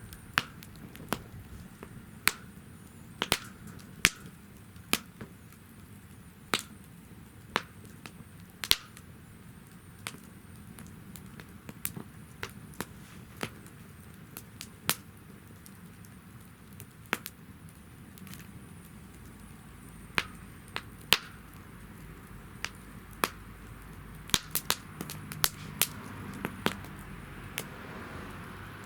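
Wood fire burning in a fire-pit stand, crackling with sharp pops at irregular intervals over a steady low rustle of flame, and a quick run of pops near the end.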